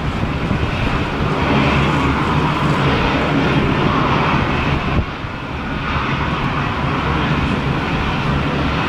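Airplane engine noise: a loud, steady rumble with a brief dip in level about five seconds in.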